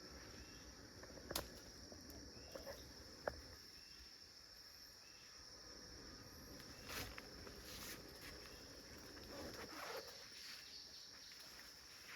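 Faint forest ambience: a steady high-pitched insect drone, with a few sharp clicks and some rustling in the second half.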